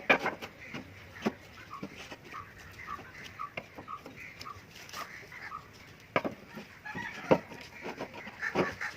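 Repeated short animal calls, about two a second through the middle, among scattered sharp knocks and clicks that are loudest just after the start and again in the last few seconds.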